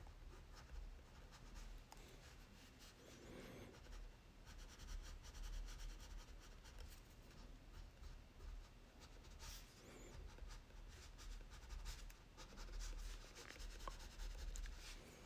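Black Crayola wax crayon scratching faintly on drawing paper in many short, quick, irregular strokes, building up fur texture.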